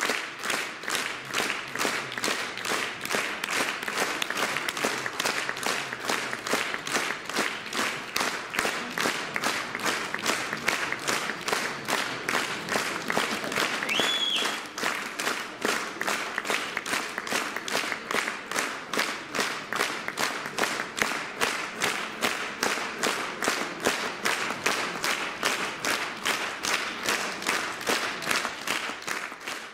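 Concert audience applauding in rhythmic unison, about two to three claps a second. There is a short high whistle about halfway through.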